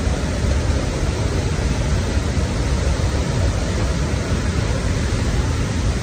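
Athirappally Falls rushing in heavy flow: a loud, steady, unbroken wash of falling water, heaviest in the low end.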